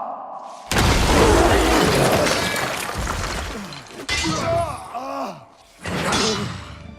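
A sudden loud crash with shattering that dies away over a couple of seconds, then another sharp hit and a person's voice groaning.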